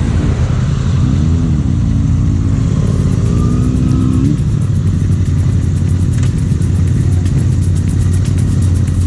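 Suzuki GS500F parallel-twin motorcycle engine running under way, its pitch rising and falling a couple of times in the first half, with heavy wind rush on the helmet microphone.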